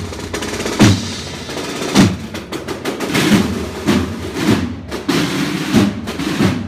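Processional marching band (banda de música) playing, led by snare-drum rolls and bass-drum beats, with two loud bass-drum strikes about a second apart near the start.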